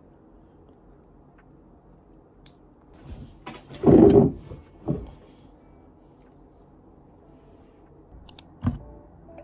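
A plastic bottle of micellar cleansing water being handled and set down close to the microphone: a loud cluster of bumps and rustling about four seconds in, a smaller bump just after, and a few sharp clicks near the end.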